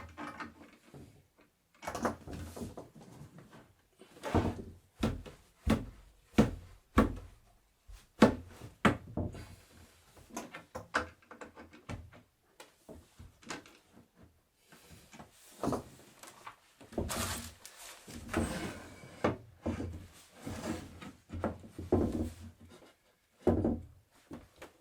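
Wooden parts of a bed frame being handled and fitted together: irregular wooden knocks, thuds and clunks, with a longer scraping sound about seventeen seconds in.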